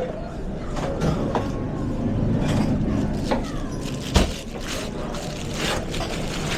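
Restaurant kitchen line during service: a steady low rumble with scattered clattering of pans and utensils, and one heavy knock about four seconds in.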